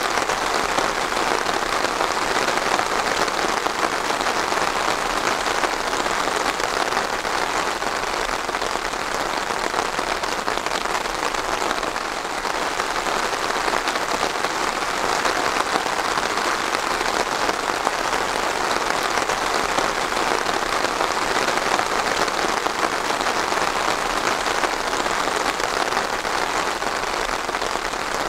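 Steady rain falling, a continuous even hiss of drops with no let-up.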